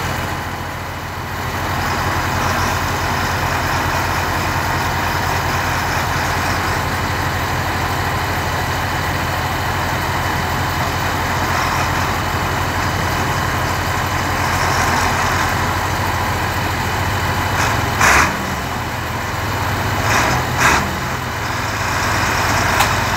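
Large tractor diesel engines running steadily under load, pulling a loaded sugarcane trailer through deep mud, with a low even pulsing. A few short louder noises come in near the end.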